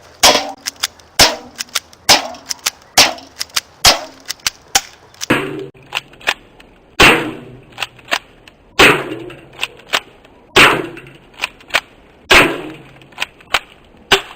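Stinger P311 airsoft pistol firing shot after shot, with smaller clicks and knocks between the shots. The shots come about one a second at first, then more spaced out in the second half, where each has a longer tail.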